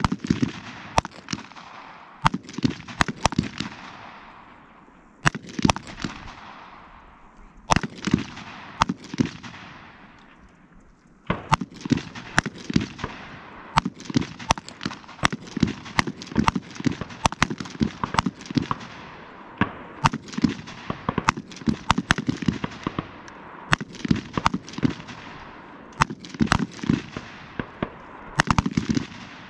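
Rifle shots from several shooters firing at once, irregular and overlapping, each crack followed by a short trailing echo, with a brief lull about ten seconds in.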